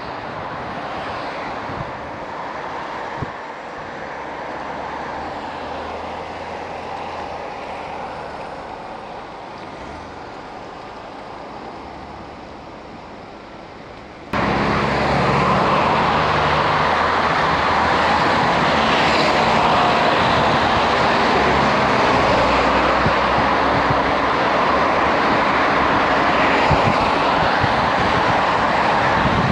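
Road traffic heard from a bicycle riding in traffic: a steady noise of passing vehicles and engine rumble. About halfway through it jumps abruptly much louder and stays so.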